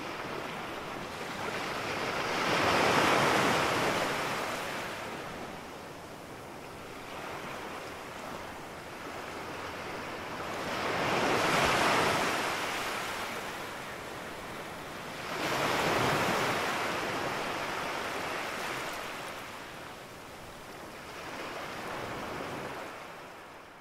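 Small surf waves breaking and washing up a sandy beach, the sound swelling and ebbing four times as each wave comes in, then fading out at the very end.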